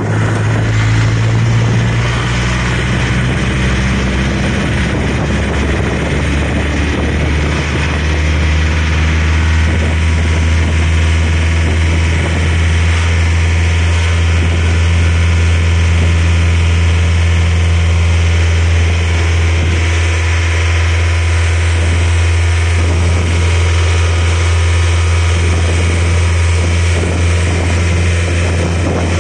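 Tourist road train's engine running steadily under way, heard from on board as a loud low drone that drops slightly in pitch a few seconds in.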